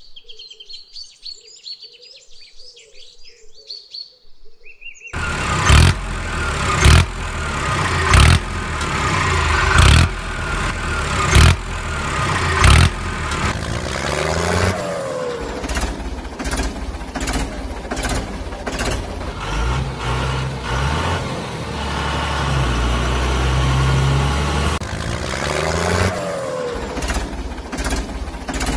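Faint birdsong, then about five seconds in a loud vehicle engine sound starts, dubbed over a toy tractor pulling a toy dump truck. It comes with sharp knocks about every second and a half for the first several seconds, then runs on more steadily.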